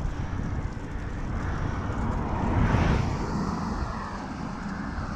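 A motor vehicle passing on the road: its noise swells to a peak about three seconds in and then fades, over a steady low rumble.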